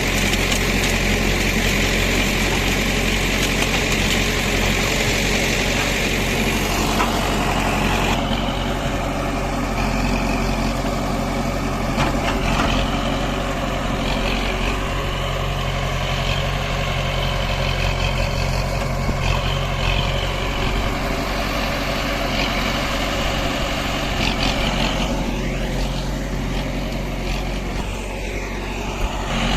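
JCB 3DX backhoe loader's diesel engine running steadily, with a higher hiss over it that stops about eight seconds in.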